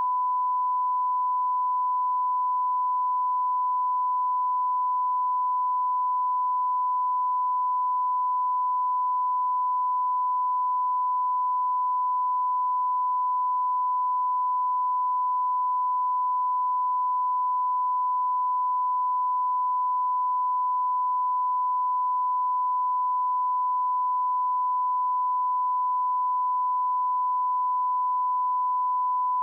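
Broadcast line-up test tone: a single unbroken pure tone at one steady pitch, the reference tone that runs with colour bars for setting audio levels.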